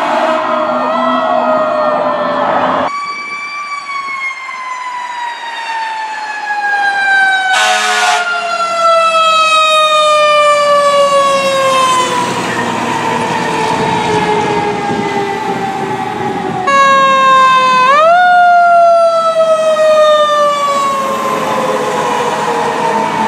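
Fire truck sirens winding down, the pitch sliding slowly lower for many seconds at a time. The sound changes abruptly about three seconds in and again near seventeen seconds. Near eighteen seconds one siren is wound quickly back up before coasting down again. A short horn blast comes about eight seconds in.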